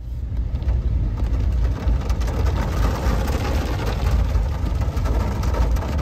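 Storm rain falling heavily, a steady hiss with fine patters through it, under a deep rumble of gusting wind on the microphone.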